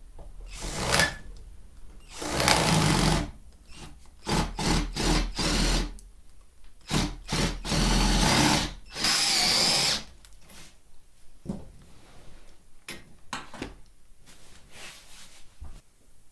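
Power drill run in a series of short bursts, on and off for about ten seconds, then stopping, with a few light knocks after.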